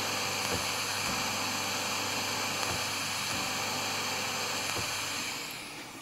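A faulty 1979 CRB Diamond Mascotte organ's loudspeaker gives a steady loud hiss with a low hum under it while keys are played, the notes barely coming through the noise: the signal is not reaching the speaker properly. The hiss dies away near the end.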